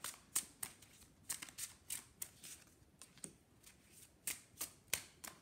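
Tarot cards being handled and laid down on a cloth: a string of sharp card clicks and flicks, irregular, a dozen or more over a few seconds.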